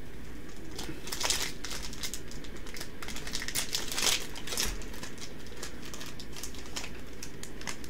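Foil Yu-Gi-Oh booster pack wrapper crinkling and tearing as it is opened by hand, in a run of irregular crackles.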